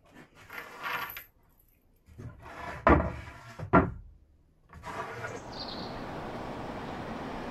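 A cordless drill-driver whirring in short bursts as screws go into pine bed-frame planks, with two sharp knocks of wood. About five seconds in, this gives way to a steady background hiss.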